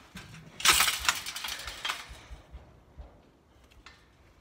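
A burst of rattling and metallic clinking about half a second in, fading over the next second or so: a wire cage trap being handled, with a camo fleece rubbing on the microphone. Faint rustling follows.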